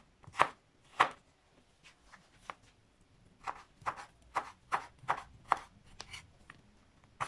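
Chef's knife slicing carrots on a wooden cutting board, each cut ending in a sharp knock of the blade on the board. Two strong chops come in the first second, then a few softer ones and a short pause, then a steady run of about three chops a second.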